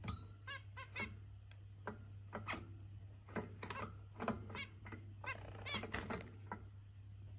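Zebra finches giving short nasal calls over and over, roughly two or three a second, during courtship and mating. About five seconds in the calls run together into a quick buzzy chatter. A steady low hum sits underneath.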